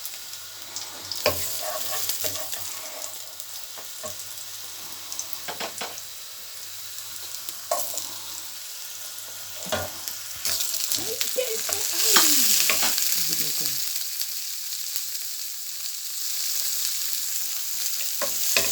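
Vegetables sizzling in hot coconut oil in a frying pan, with a utensil clicking and scraping against the pan as they are stirred. The sizzle grows louder about halfway through.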